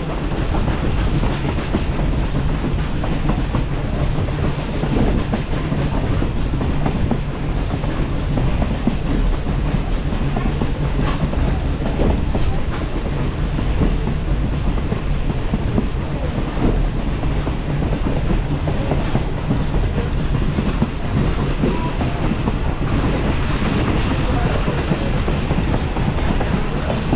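Passenger train running, heard from aboard: a steady rumble of wheels on the rails.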